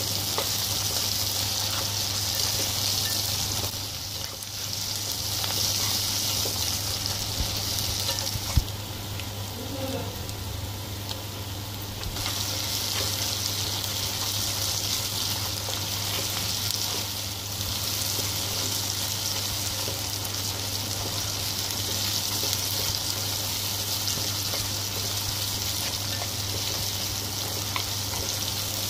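Sliced onions sizzling as they fry in hot oil in a pan, stirred with a spatula. The sizzle drops for a few seconds near the middle, with a single sharp knock as it does.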